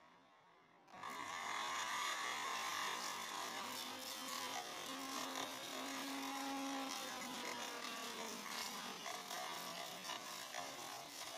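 Electric blender (mixer grinder) motor starts about a second in and runs steadily, with small hollow plastic balls clattering against the jar and blades.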